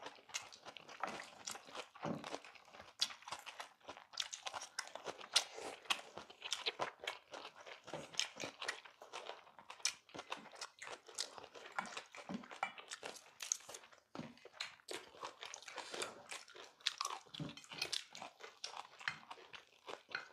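People chewing mouthfuls of bibimbap, picked up close by clip-on microphones: dense, irregular wet clicks and crunches of chewing, with chopsticks clicking against stainless steel bowls.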